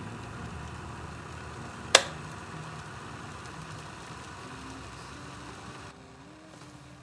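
Electric gooseneck drip kettle heating water with a steady hiss, and a single sharp click about two seconds in as it switches itself off. The hiss drops away near the end.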